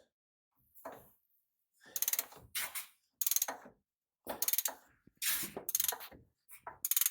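Hand ratchet wrench being cranked in repeated short strokes, each stroke a quick run of pawl clicks, as suspension bolts are tightened.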